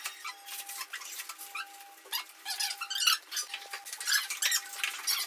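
Plastic casing of an LG split AC indoor unit creaking and squeaking, with irregular clicks and rubbing, as it is pushed and hooked onto its metal wall mounting plate with the pipe bundle being worked through the wall.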